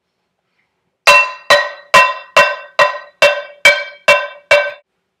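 A metal pan struck nine times in a steady beat, about two hits a second, each hit clanging and ringing briefly.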